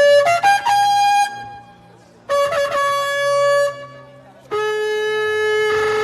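Shofar (ram's horn) blown in a series of blasts: a held blast ends just after the start, then a few short broken notes that jump higher, then two long blasts with short gaps between them. The last blast starts lower and steps up in pitch near the end. It is sounded as a call to repentance.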